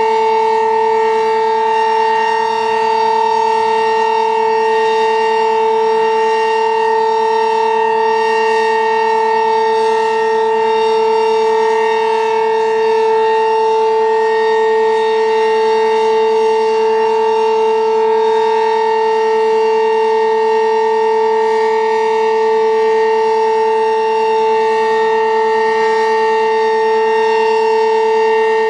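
Sentry 15V2T-B two-tone outdoor warning siren sounding its weekly test, holding a steady, unwavering chord at full pitch.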